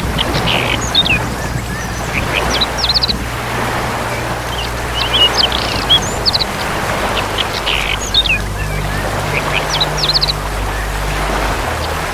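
Birds calling in short, sharp chirps that come in clusters every two to three seconds, over a steady low hum.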